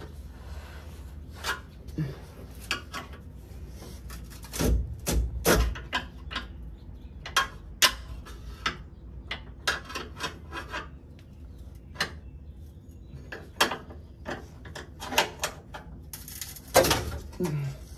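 Irregular metallic clinks and knocks of hand tools and bolts against the steel transmission crossmember and underbody of a Jeep Wrangler JKU as the crossmember is worked loose, a few sharp ones close together about five seconds in.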